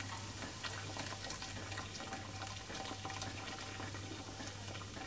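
Fizzy lemonade poured from a plastic bottle in a steady stream into a large glass bowl over ice cubes, splashing and fizzing with a fine crackle.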